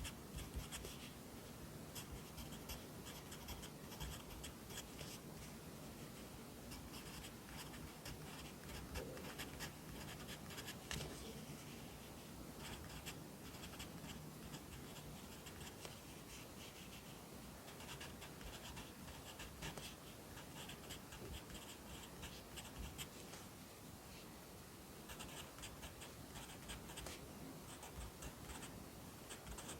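Pencil writing Korean characters on paper: quick, scratchy strokes in clusters, with short pauses between characters.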